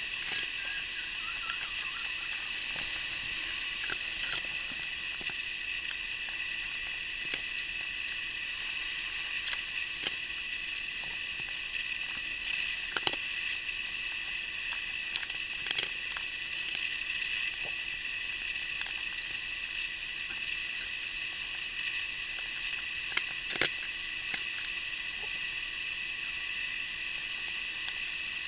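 A cat eating wet cat food, with faint sparse clicks and wet smacking over a steady high-pitched hiss.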